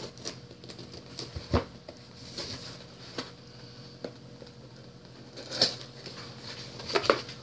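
Cardboard box of quilling paper strips being handled and opened: scattered light taps and clicks, the sharpest two near the end.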